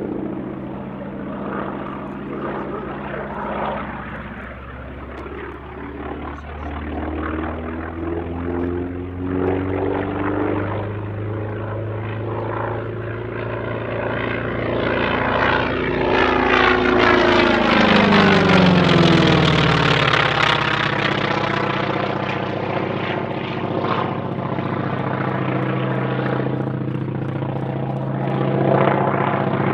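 North American T-28 Trojan's radial engine and propeller in flight, swelling to its loudest about two-thirds of the way through as the aircraft passes by, the engine note dropping in pitch as it goes past, then carrying on steadily.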